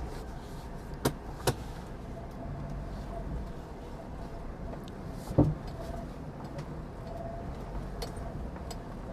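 Leopard Black King Kong SUV driving slowly over rough unpaved ground: a low steady engine and road rumble, with a few sharp knocks from the body as it goes over bumps, the loudest about five seconds in.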